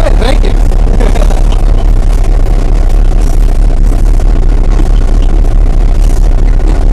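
EMD GP10 diesel locomotive's 16-cylinder two-stroke engine running steadily, very loud and close. Brief high squeals slide in pitch in the first second.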